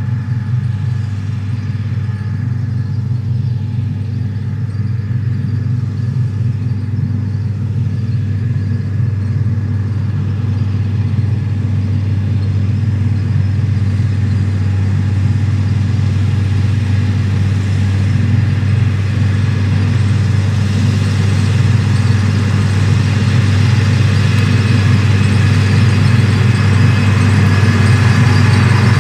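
Case IH Steiger 9330 articulated four-wheel-drive tractor's 8.3-litre Cummins six-cylinder turbo diesel running steadily while pulling a hay merger, growing gradually louder as the tractor approaches.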